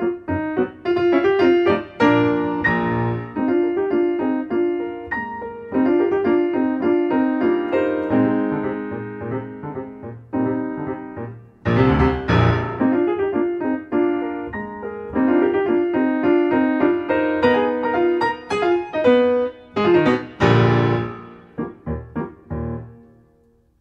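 Piano music: a continuous flow of notes, with a brief dip about ten seconds in and the playing fading just before the end.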